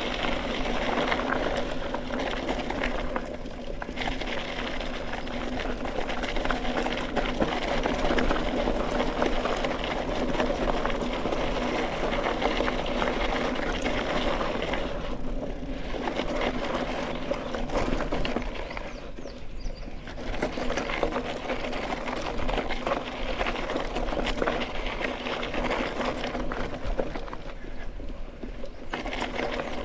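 Mountain bike rolling along a dirt and gravel single-track: a steady rattle and buzz from the tyres and bike, easing off briefly a few times.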